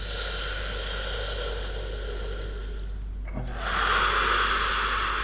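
A person's deep breathing: one long breath lasting about three seconds, then after a short pause a second, louder long breath near the end.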